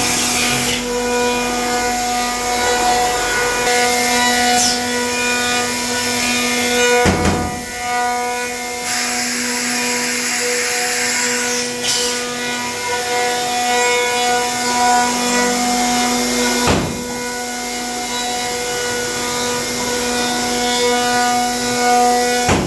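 A five-axis CNC gun-stock milling machine running, its spindles giving a steady high whine while the cutters mill walnut stock blanks with a constant scraping cutting noise. There are three brief louder surges of cutting noise along the way.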